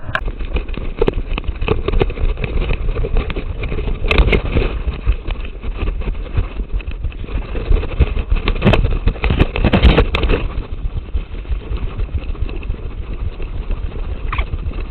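Fast-forwarded walking sound: rapid crunching and rustling of footsteps through dry grass and leaf litter, over a steady low rumble of wind buffeting the camera microphone. The noise is densest about four seconds in and again around nine to ten seconds.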